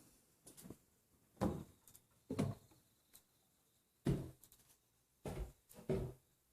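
A series of irregular knocks or thumps, about half a dozen, each short and dying away quickly, with quiet in between.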